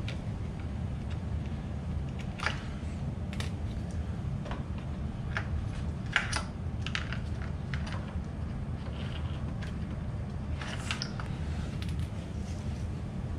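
Scattered light plastic clicks and taps as the battery tray and hold-down of an RC truck are handled, the sharpest about six seconds in, over a steady low hum.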